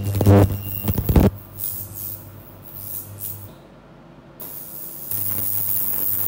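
Vacuum suction of a body-slimming machine running, air hissing through the large handpiece in separate bursts and then steadily over a low hum in the last second or so. A loud burst of noise comes in the first second.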